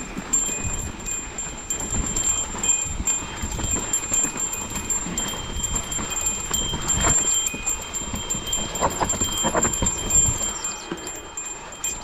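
Specialized Kenevo SL electric mountain bike rattling and clattering down a rough, rocky dirt singletrack: tyres crunching over dirt and stones, with irregular knocks and chain and frame rattle as it hits bumps. A faint thin high whine comes and goes over it.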